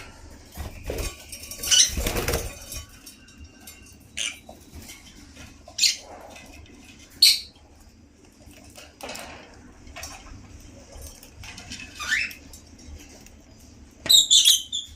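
African lovebirds giving short, sharp, high chirps every second or two, with a rising call about twelve seconds in and a quick cluster of chirps near the end. A flurry of wing flapping and rustling comes about two seconds in.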